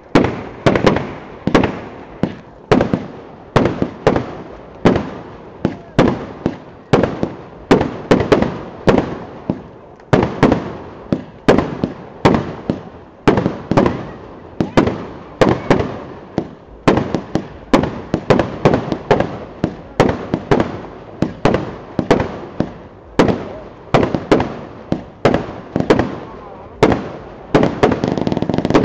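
Rapid string of firework bangs, about two a second, irregular and continuous.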